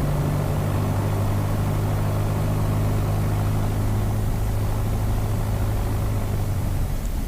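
Piper Dakota's six-cylinder piston engine and propeller running steadily with a constant low hum, before takeoff power is applied.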